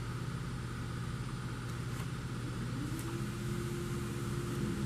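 A steady low motor hum, joined about two and a half seconds in by a second motor tone that rises in pitch and then holds steady, with a few faint clicks.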